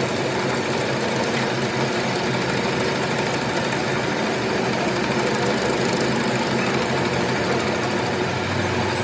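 Metal lathe running with its chuck spinning a steel shaft workpiece: a steady mechanical drone of motor and gearing that holds even throughout.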